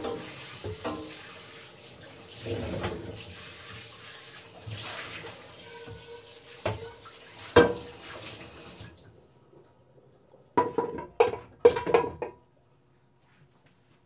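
Dishwashing in a stainless-steel sink: tap water runs while dishes knock and clink in the washing tub. The running water stops about two-thirds of the way through, followed by a quick run of dish clatters.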